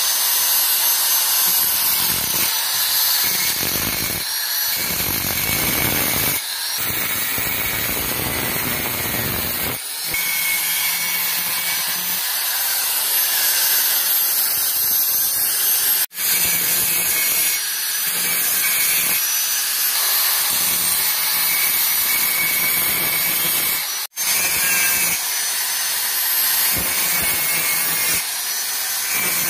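Electric angle grinder with an abrasive disc cutting and grinding rusty square steel tubing, running loud and steady with a high grinding noise. The sound breaks off suddenly for a moment twice, about halfway through and again near the end.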